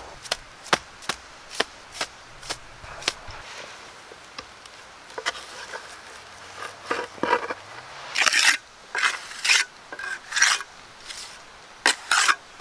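Hand tool work: a run of sharp taps in the first three seconds, then a series of short scraping strokes near the end.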